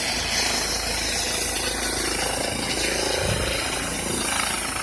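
Medical helicopter's turbine and rotor running at takeoff power as it prepares to lift off: a steady, dense whine and rotor noise that gets louder at the start and then holds level.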